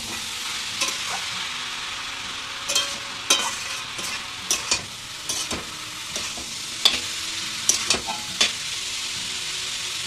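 Green jackfruit curry frying in a pan with a steady sizzle, while a spatula stirs it, scraping and knocking against the pan in about ten sharp clicks.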